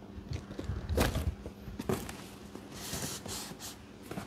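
Cardboard product boxes being handled in a shipping carton: a knock with a dull thump about a second in, a lighter knock just before two seconds, then a short scrape of cardboard sliding against cardboard.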